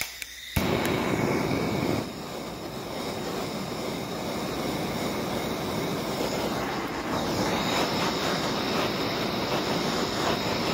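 Handheld gas blowtorch: gas hissing, a click, then the flame lights suddenly about half a second in and burns with a steady rushing noise as it heats shrink tubing. It is a little louder for the first second or so, then settles.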